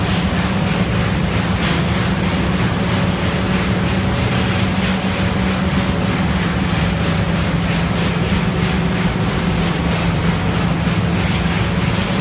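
Balemaster E560 auto-tie baler running, a steady machine noise with a constant low hum.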